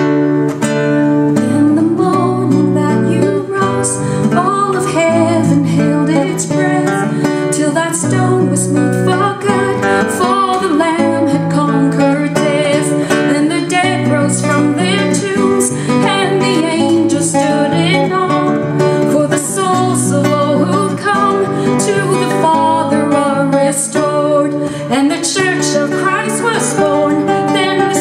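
Nylon-string classical guitar fingerpicked steadily, with a woman singing a slow worship song over it; her voice rests during the first half and comes back in about halfway through.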